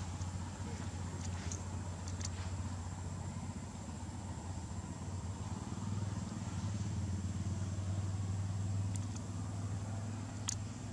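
A steady low motor hum runs throughout, with a thin high whine above it and a few faint sharp clicks.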